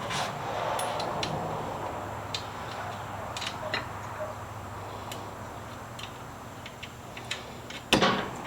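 Scattered light clicks and taps of hand tools on metal as the exhaust bracket's nuts are run down. There is a louder clank about eight seconds in.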